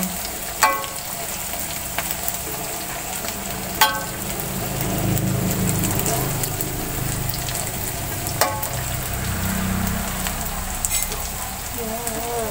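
Tempe sizzling steadily in hot oil in a steel wok. A metal spatula clinks against the wok three times, each strike ringing briefly.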